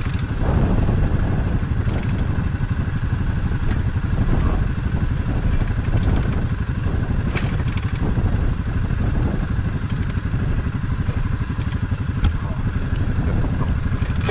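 Off-road motor engine idling steadily close by, with a fast, even low pulse and an occasional sharp click.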